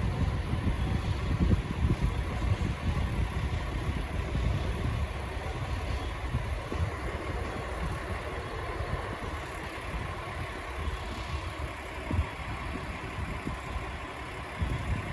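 Steady rumble and hum of a freight train hauled by an EF510 electric locomotive, with a faint steady tone and gusty low noise throughout.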